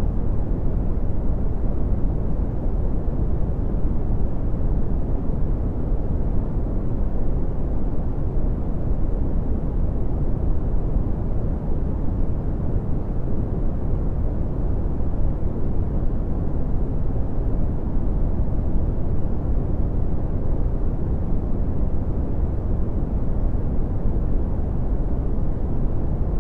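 Red (Brownian) noise: a steady, deep rumbling hiss with most of its energy in the low bass and little above about 1 kHz, unchanging in level.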